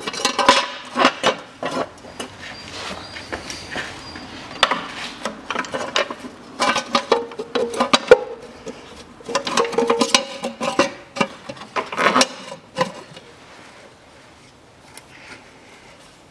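Metal clinks and knocks of bolts and a small steel flywheel cover being fitted by hand, in several clusters of quick taps, dying down about thirteen seconds in.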